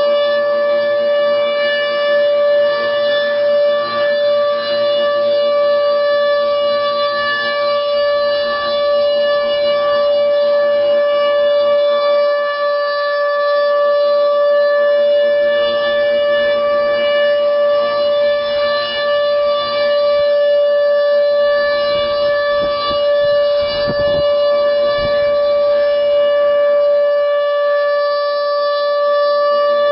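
Federal Signal Thunderbolt 1000 mechanical tornado siren sounding its steady alert signal at full speed: one loud, unwavering high tone, rich in overtones.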